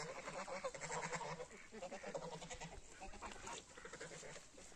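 Farmyard poultry calling faintly: a run of short, repeated low calls from the mixed flock of chickens, ducks and geese.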